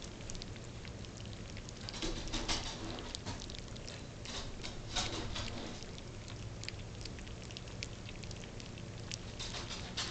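A litter of 23-day-old Shetland sheepdog puppies lapping and smacking at wet puppy mash in a shared dish: a busy patter of many small, irregular wet clicks.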